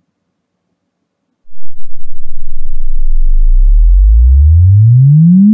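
Room EQ Wizard log sine sweep for a subwoofer bass-response measurement: a loud, very low tone starts about a second and a half in and glides steadily upward in pitch, then cuts off suddenly at the end.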